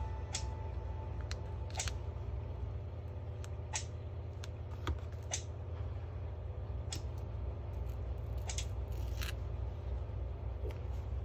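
About ten light, irregularly spaced clicks and ticks from steel tweezers and sticker sheets being handled on paper, over a steady low hum.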